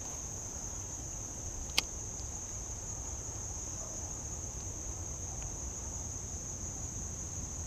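Steady high-pitched chorus of insects such as crickets, one continuous unbroken drone. A single sharp click about two seconds in.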